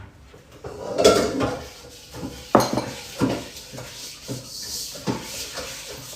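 Kitchen utensils clinking and knocking against pots and pans: about five separate knocks, spread out.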